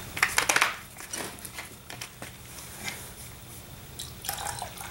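Plastic jug of SCR concrete cleaner being shaken, its liquid sloshing in a quick rattling burst, followed by a few light clicks and drips as it is handled and tipped over the mixing cup near the end.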